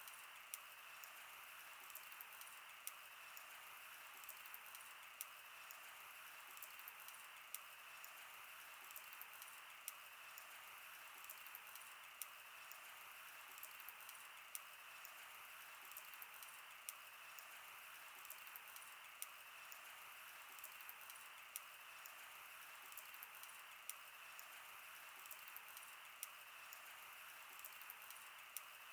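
Wood fire burning: a faint steady hiss with frequent sharp pops and crackles scattered irregularly throughout.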